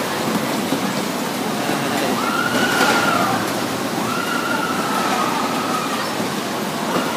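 Bumper cars running on the rink floor: a steady rolling rumble and clatter, with a knock about three seconds in and two drawn-out high-pitched sounds, the second lasting about two seconds.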